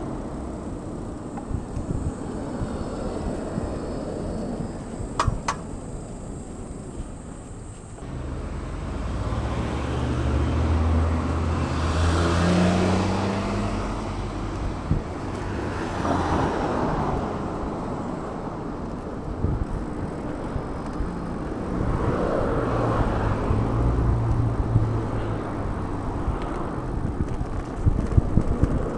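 Street traffic: several cars pass close by with engine and tyre noise over a steady low rumble, one car's engine note rising as it passes about twelve seconds in. A brief sharp squeak comes about five seconds in.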